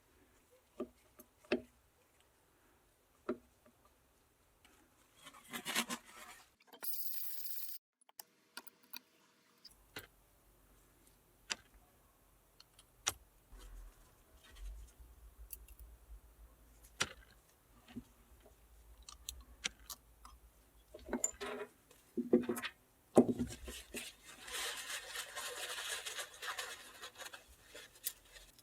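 Small metal parts of a diesel injection pump and hand tools being handled on a bench: scattered light clicks, taps and scrapes, a few sharper knocks, and a longer stretch of rubbing or hissing near the end.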